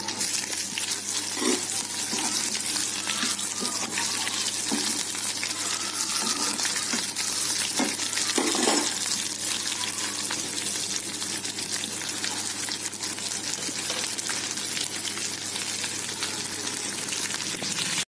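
Sliced ivy gourd (tindora) frying in hot oil in a kadai with green chillies and curry leaves. It gives a steady, even sizzle.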